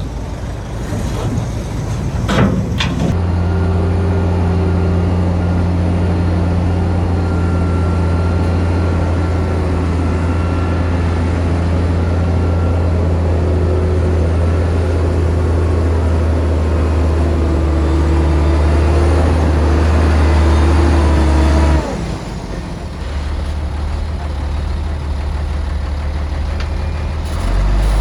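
Heavy diesel engine of earthmoving machinery running under load with a deep, steady drone, after two sharp knocks near the start. The drone cuts off abruptly about three-quarters of the way through, leaving lower engine noise, and an engine revs up near the end.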